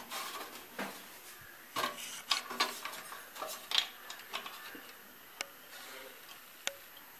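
Hands handling wires and plastic connectors inside a steel desktop computer case while the CPU fan's cable is connected: scattered light clicks, knocks and rustles, busiest in the middle, with two sharp single clicks near the end.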